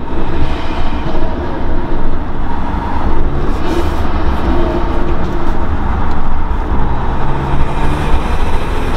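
Alfa Romeo 2.0-litre turbocharged four-cylinder engine, breathing through a home-made 90 mm intake with an open BMC race filter, heard from inside the cabin while driving: a loud, low rumble that swells and eases with the throttle.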